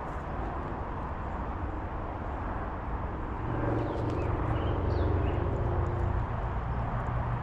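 A motor vehicle passing nearby: a low engine hum swells from about halfway in, peaks, then fades, over a steady outdoor rumble.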